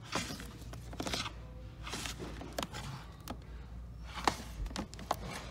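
Plastic DVD cases clacking and scraping as they are pulled from a shelf and handled, with about nine short knocks, the loudest a little past four seconds in, over a steady low hum.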